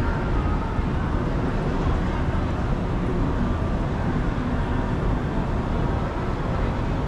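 Indoor shopping-mall ambience: a steady low rumble and hum with faint, distant voices.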